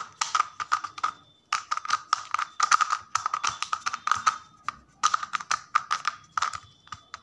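A 2x2 puzzle cube turned quickly by hand, its plastic layers clicking and clacking in fast runs of turns. There are three runs with short pauses between them, as a corner-swap algorithm is carried out.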